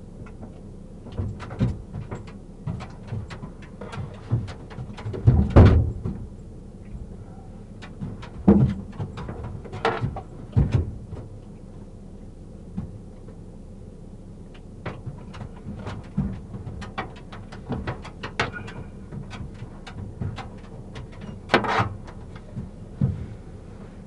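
Irregular knocks, bumps and rustling, the handling noise of a car being searched, over a steady low hum. The heaviest thumps come about five seconds in and again near the end.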